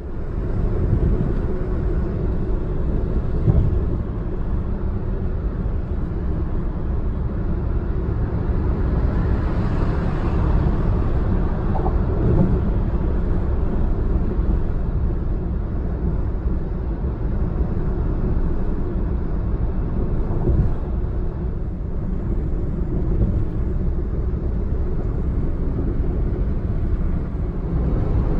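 A car driving at road speed, heard from inside the car: a steady low rumble of tyres and engine, with a few light bumps.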